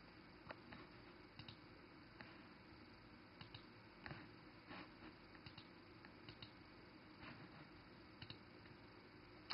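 Near silence: faint room tone with a few light, irregular clicks, about one a second.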